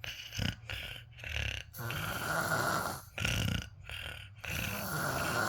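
Snoring: a run of long, noisy breaths in and out, separated by short gaps.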